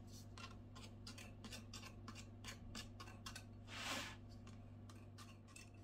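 Metal offset spatula scraping and tapping along raw pastry dough at the rim of a metal springform pan as the crust's top edge is trimmed down: a run of faint short scrapes, with one longer, louder scrape about four seconds in.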